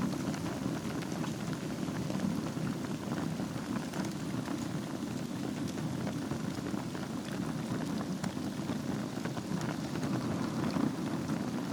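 Wood fire burning over embers in a fireplace: a steady low rush with many small scattered crackles and pops.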